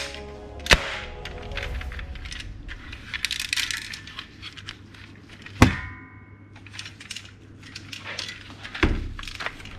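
Hard plastic toy gun parts clicking and knocking as they are handled and fitted together, with two sharp snaps: one just under a second in and one a little past the middle.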